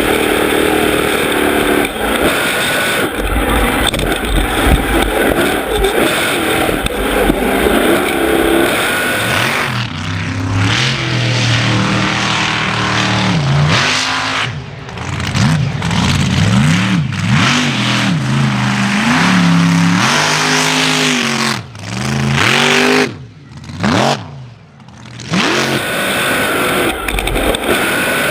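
Hammerhead mega truck's engine revving hard, its pitch rising and falling again and again as the throttle is worked, with a couple of brief drops near the end when it is let off.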